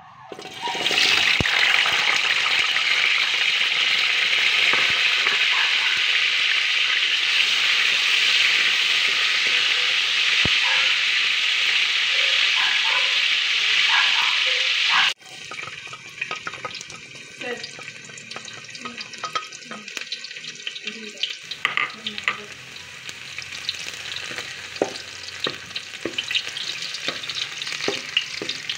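Cubed potatoes frying in hot oil in a steel wok: a loud, steady sizzle that starts as they go in. About halfway through it cuts to a quieter sizzle of minced garlic frying, stirred with a wooden spatula that scrapes lightly against the wok.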